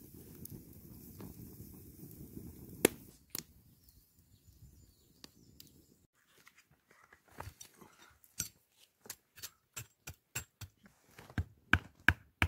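A campfire crackling with a sharp pop, then after a short pause a run of sharp knocks, loudest near the end, as a split wooden stake is driven into stony ground.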